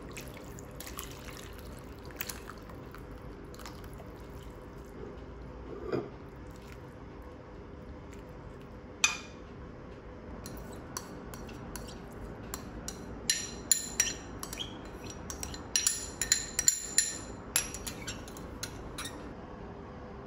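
Kimchi stew with tofu and enoki poured from a saucepan into a ceramic bowl, the liquid splashing softly. A metal spoon clinks against the bowl and the pan, a few single clinks early on and then a quick run of them in the second half.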